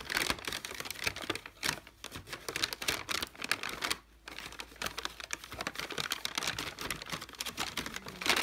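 Brown kraft paper bag crinkling and rustling as a sphynx cat moves and scrabbles around inside it: a near-continuous run of dry crackles, with a short pause about four seconds in and a louder burst near the end.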